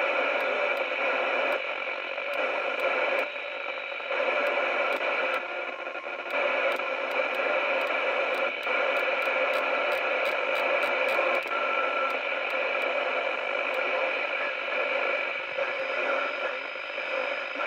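CB radio on FM hissing with open-squelch static from its speaker as it is stepped through the channels. Short ticks come as the channel changes, in a quick run about eight to eleven seconds in.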